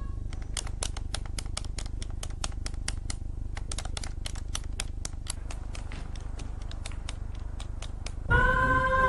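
Buttons on a small handheld electronic device being pressed in rapid, uneven clicks, about five a second with short pauses. Music with long held notes comes in near the end.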